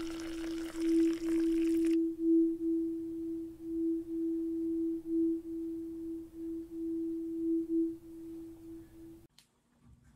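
A single steady ringing tone that pulses gently in loudness, like a singing bowl, cutting off abruptly about nine seconds in. For the first two seconds, tea splashes into a ceramic cup as it is poured from a teapot.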